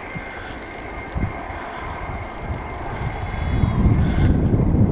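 Electric InterCity 225 express train running away into the distance, a steady thin whine that fades out about four seconds in. Under it is a low, uneven rumble that swells near the end.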